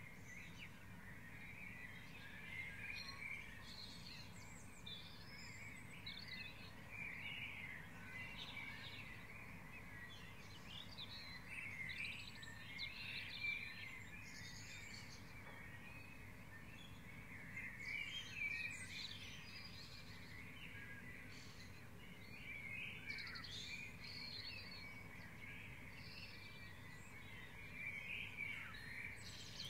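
Dawn chorus: many birds singing and calling at once in short, overlapping phrases, with a steady low hum underneath.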